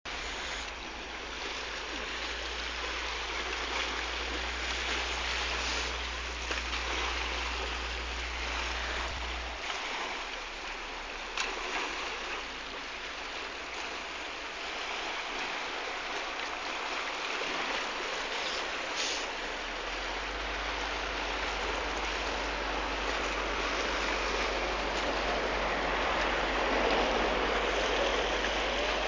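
Steady rush of sea water, with a low hum underneath that drops away about ten seconds in and comes back near twenty seconds.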